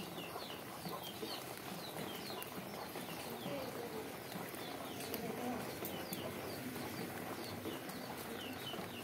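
Birds chirping: short, high, falling peeps, often in quick pairs or runs, repeating throughout over a steady low hiss.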